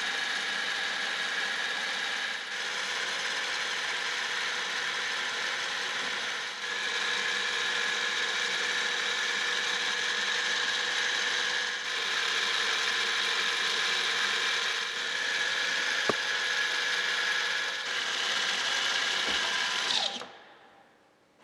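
1988 Makino KSJP-55 ram-head vertical milling machine running under power: a steady whine of motor and gearing with several tones, which shifts slightly a few times. About twenty seconds in it is switched off and winds down.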